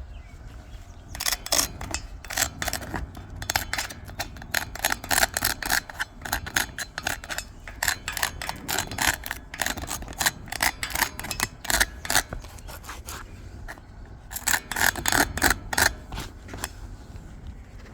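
Rapid, irregular scraping strokes in two runs: a long one starting about a second in, then a shorter one near the end after a brief pause.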